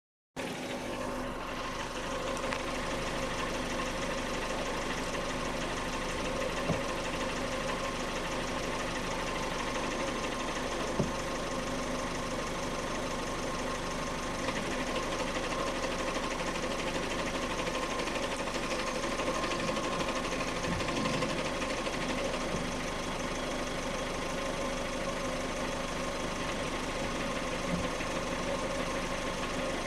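Engine idling steadily with a rattle that the owner suspects comes from the clutch. A few single sharp clicks stand out over the running.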